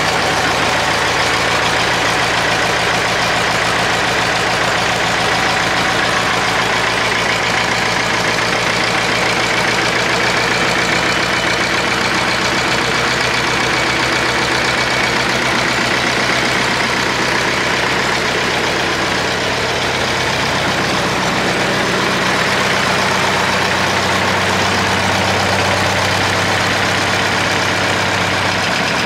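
SAME Centauro 60 tractor's diesel engine running at a steady idle, just brought to life after its fuel system was bled of air. Its note shifts slightly about two-thirds of the way through.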